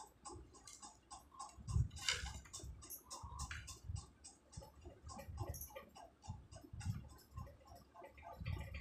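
Rapid, steady ticking, with soft knocks and rustles of food and plates being handled on a table.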